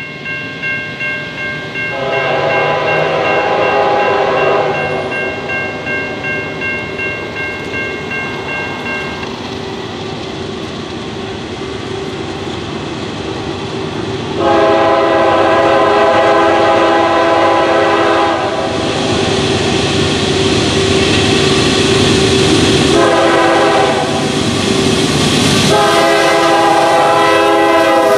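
A Norfolk Southern GE Dash 9-44CW locomotive's Nathan K5LAR24 five-chime horn sounds four blasts as a freight train approaches and passes. There is a long blast, then after a pause a longer one, then two more close together, and the last drops in pitch as the locomotive goes by. The rumble of the diesel locomotives and the wheels on the rails grows louder through the second half.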